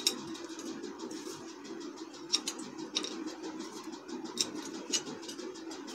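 Light, scattered clicks of crunchy almond-and-caramelised-sugar crumbs dropped by hand into a glass bowl, a few separate ticks over a steady low hum in the room.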